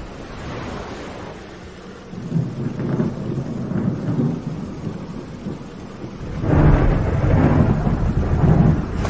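Thunder rumbling over steady rain. A low roll builds about two seconds in, and a louder, longer roll of thunder starts about six and a half seconds in and runs nearly to the end.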